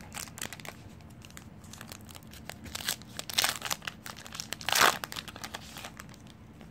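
Crinkling of a Panini Prizm baseball card pack's foil wrapper as it is torn open and the cards are slid out, a run of crackles with the loudest crinkle a little under five seconds in.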